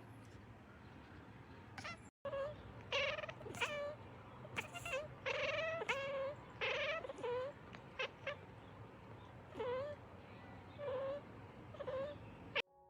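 Domestic cats meowing back and forth: a quick string of short meows, about a dozen over roughly ten seconds, beginning about two seconds in over a low steady hum.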